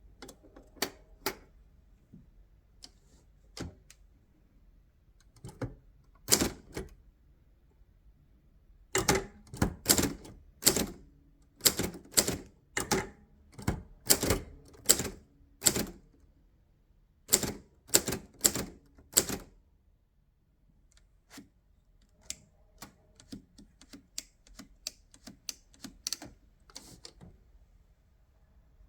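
1965 Hermes 3000 manual portable typewriter typing out a sample: keys striking in irregular runs, sparse at first, then a quick loud burst in the middle, a short pause, and lighter strokes near the end.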